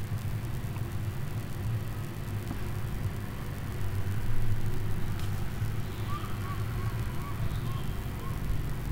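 Low, steady background rumble, with a short run of about six faint, high little chirps some six seconds in.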